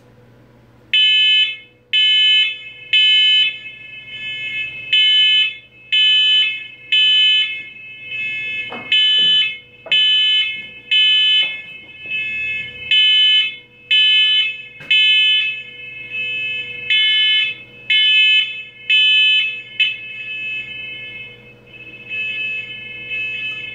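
Smoke alarm going off, set off by the welding smoke: loud, high-pitched beeps about once a second starting about a second in, with fainter beeps between them.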